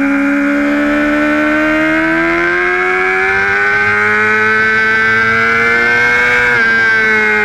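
Honda sportbike engine heard onboard on track, its note climbing steadily as the bike accelerates. About six and a half seconds in the pitch steps down suddenly and then falls away as the rider eases off.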